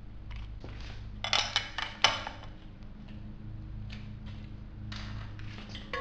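Steel wrench clinking and clicking against the axle nut of an e-bike's front hub motor as it is fitted and turned. A quick cluster of sharp metallic clicks comes about a second in, the loudest just before two seconds, then a few fainter clicks, over a steady low hum.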